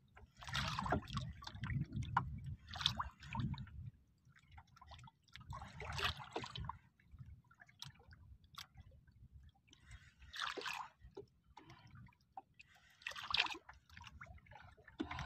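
Sea water sloshing and splashing against the side of a small outrigger boat in bursts every few seconds, with a low rumble during the first few seconds.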